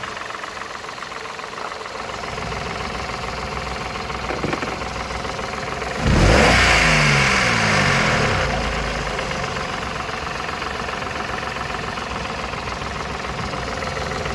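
Toyota Aygo engine idling, blipped once about six seconds in and sinking back to idle over a few seconds. The owner asks whether the ticking noise it makes comes from a bearing, the timing chain or the valves.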